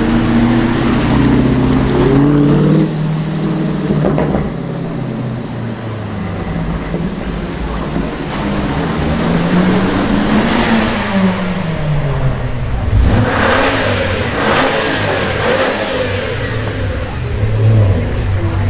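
Audi RS6 engine and exhaust revving and accelerating, the pitch rising and falling several times.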